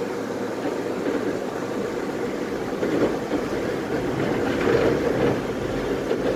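Tatra T3SU tram running along the rails, heard from inside the car: a steady rumble of wheels and running gear that swells slightly about halfway through.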